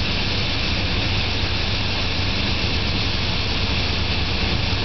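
Large air compressor running steadily, a low rumble under an even wash of noise, as it supplies air to jet a transmission pole down into sand.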